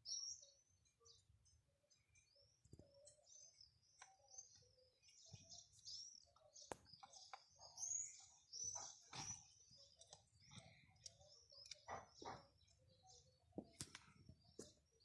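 Small birds chirping and twittering, faint and high-pitched, with a few scattered sharp clicks and knocks.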